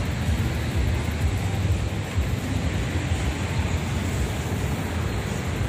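Wind buffeting the microphone of a camera carried on a moving bicycle: a steady low rumble with a hiss over it.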